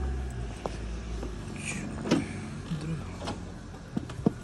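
Motorbike engine idling, with clothing rustle and a few sharp knocks from the handheld phone, the loudest near the end.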